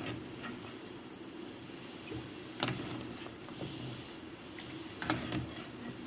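A few sharp clicks and knocks of a kitchen utensil against cookware as boiled chicken feet are lifted out of the pot into cold water: one a little before halfway and a quick pair near the end, over a steady low hum.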